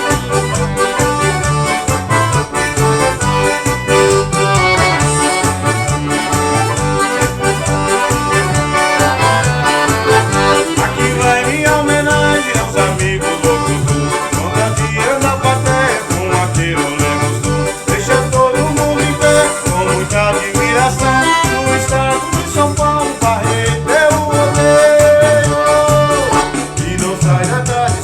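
Live forró band playing an accordion-led instrumental passage over a steady bass and drum beat, with a long held accordion note near the end.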